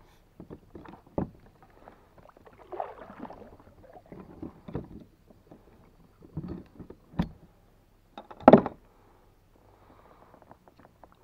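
Scattered clicks, knocks and scuffs of gear being handled aboard a plastic fishing kayak, including metal fishing pliers, with one louder knock about three quarters of the way through.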